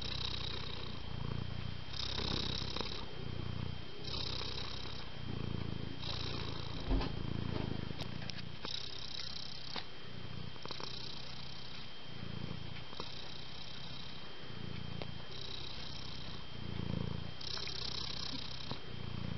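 Cat purring steadily, the purr swelling and easing with its breathing about once every two seconds. A single soft thump about seven seconds in.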